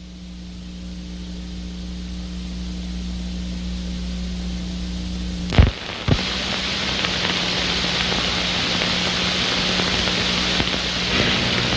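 Steady hum and hiss from the soundtrack of an old videotape transfer, the hiss growing louder over the first few seconds. Two sharp clicks about half a second apart near the middle.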